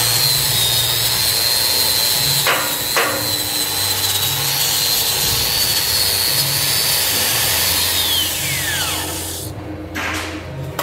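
DeWalt angle grinder grinding the flux-core weld on a steel column splice, its motor running with a high, steady whine over the grinding noise. About eight seconds in it is switched off and the whine falls away as the disc winds down.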